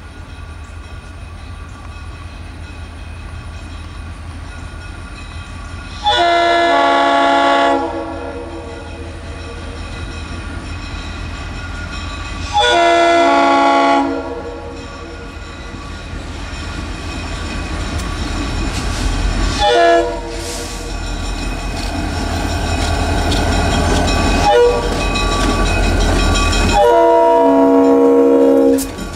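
US Army diesel-electric locomotives approach and pass, their engines rumbling louder as they near. The multi-tone air horn sounds the grade-crossing signal: two long blasts, a short one, and a final long blast held as the engines go by.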